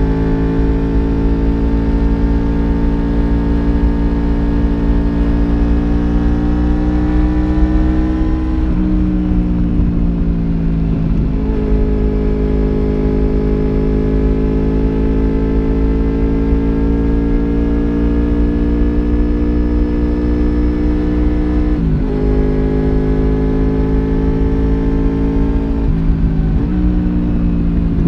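Honda VFR750F RC36's 90-degree V4 engine pulling on the move, its pitch climbing slowly under steady throttle, then changing sharply at gear changes about a third of the way in and twice near the end.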